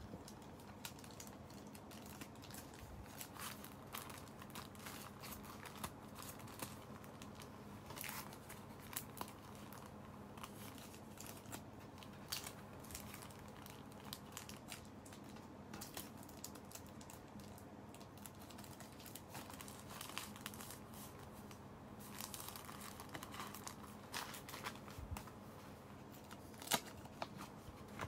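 Translucent sticker packets and paper crinkling and rustling as they are handled, with scattered small crackles coming in bursts and one sharper crackle near the end.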